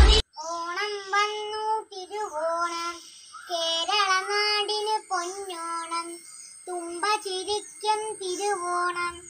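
A young girl singing a Malayalam Onam song unaccompanied, in short phrases with held notes and brief pauses between them.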